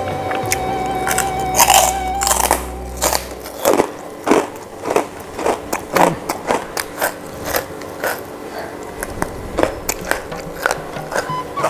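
Close-miked mouth sounds of a person eating chicken with the fingers: uneven wet smacks, bites and chewing clicks. Background music fades out about three seconds in.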